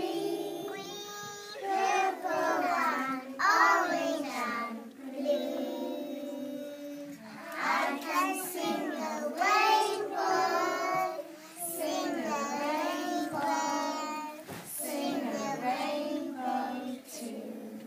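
A group of young children singing together, line after line with brief pauses between phrases.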